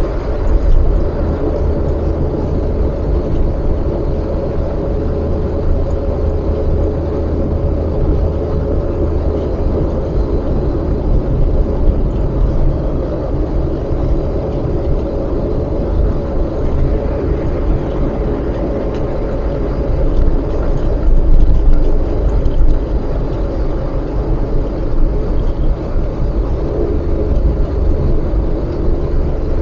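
Steady car running noise heard from inside the cabin while driving: a low road rumble with a constant hum, swelling slightly louder about two-thirds of the way through.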